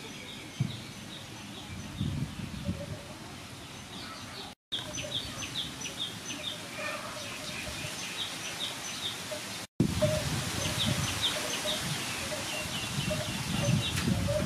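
Small birds chirping in quick series of short notes, over a steady outdoor background with low, muffled handling noises. The sound drops out briefly twice.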